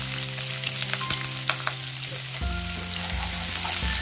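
Chopped onion sizzling in hot oil in a nonstick kadai, stirred with a wooden spatula that clicks and scrapes against the pan as the onion is fried soft.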